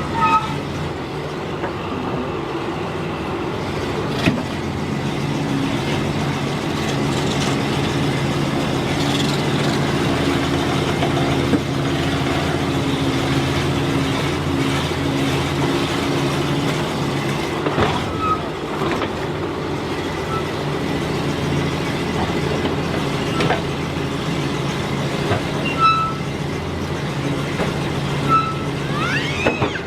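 The engine of a 1963 Landsverk L58 BR cable backhoe running steadily under work, with a few sharp knocks and short high squeaks from the machine along the way.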